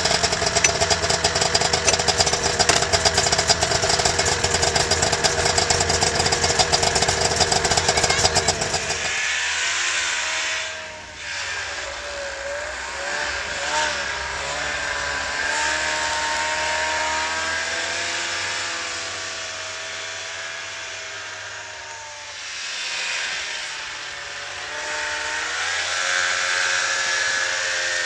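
Two-stroke snowmobile engine: for about nine seconds it runs steady close by with a fast pulsing note, then it is heard farther off as the small snowmobile rides in loops, its pitch rising and falling with the throttle.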